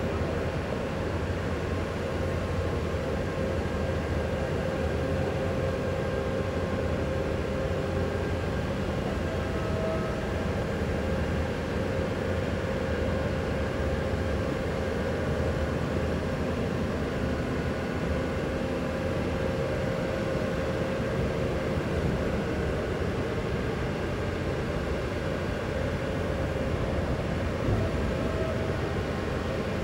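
Steady drone of a telescopic boom lift's engine running as the machine drives and swings its boom, a low hum with a faint steady tone over it.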